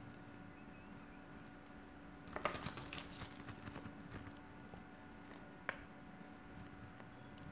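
Paper leaflet rustling and crinkling in the hands for a couple of seconds, then a single sharp tap, over a faint steady hum.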